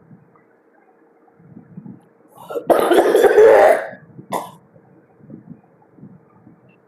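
A woman coughing hard: one harsh cough fit of about a second, a little under three seconds in, then a single shorter cough, the kind of coughing that comes on after drawing on a vape.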